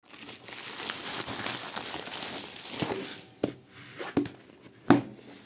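Packaging rustling and crinkling for about three seconds, then three short knocks, the last one the loudest, as the phone's box is handled.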